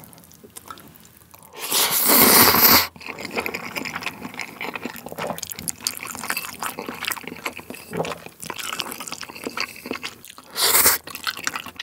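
A long, loud slurp of ramen noodles coated in melted cheese about two seconds in, then close-up wet chewing with small sticky mouth clicks, and a second, shorter slurp near the end.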